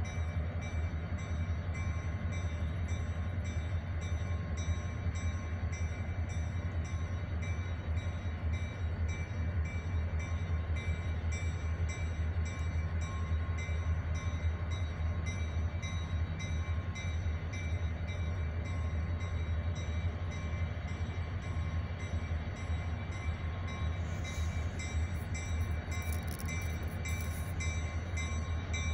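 Diesel-electric locomotive idling: a steady low engine hum with a few steady higher tones, and a faint high ticking about twice a second.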